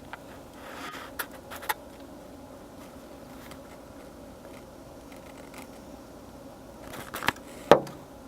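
A few sharp clicks and knocks, loudest in a short cluster near the end, over a steady low hum.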